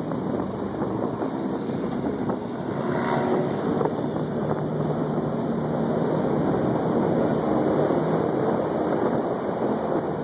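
Airboat's engine and propeller running steadily at speed, with wind buffeting the microphone.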